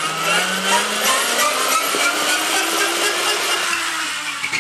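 Evel Knievel stunt cycle toy whirring as its red crank launcher spins up the flywheel. The whir rises in pitch steadily for about three seconds, then eases off and fades as the cycle runs free across the carpet.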